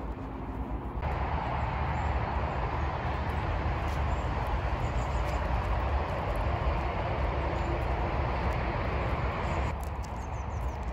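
A steady rushing noise with a deep rumble underneath. It cuts in abruptly about a second in and drops away just as abruptly near the end, with a few faint bird chirps over it.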